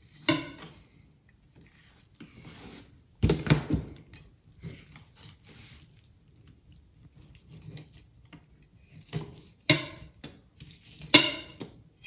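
Fillet knife slicing and scraping under the rib bones of a brown trout fillet on a plastic table, cutting the ribs out. It comes as short, separate strokes with quiet gaps between them, the loudest about three seconds in and a run of them near the end.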